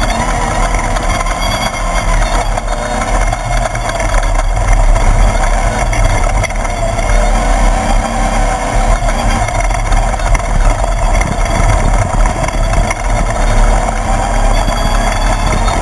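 Class 1/2-1600 desert race buggy with an air-cooled 1600 cc VW engine, driven at speed: a loud, steady mix of engine and rough-running vehicle noise with no break.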